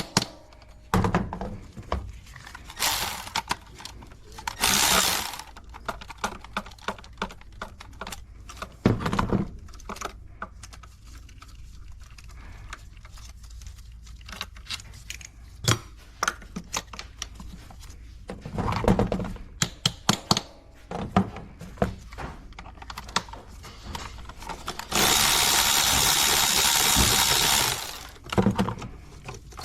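Hand ratchet clicking in quick runs as intake manifold bolts are loosened, with knocks and scrapes of the tool and parts. Near the end a power tool or air tool runs steadily for about three seconds.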